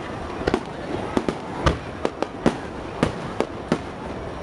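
Aerial firework shells bursting in a rapid, irregular run of sharp bangs, about two or three a second, over a steady background noise.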